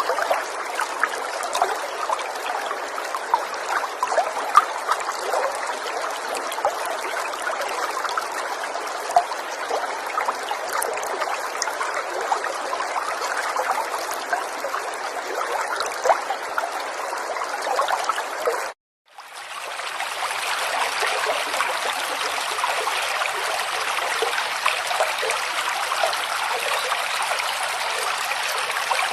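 River water babbling and trickling over stones, steady with many small splashes. About two-thirds of the way through it cuts out for a moment and comes back as a fuller, more even rush of water.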